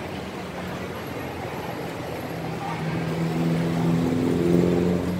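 A motor vehicle's engine running with a steady hum that grows louder over the last two seconds or so.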